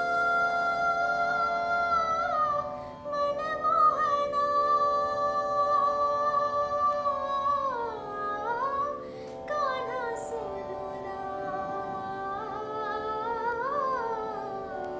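Music: the wordless opening of a devotional song, with a long held melody that slides between notes over sustained accompaniment.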